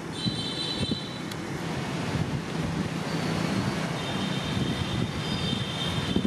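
Steady low background rumble, with a thin high-pitched tone in the first second or so and again from about four seconds in.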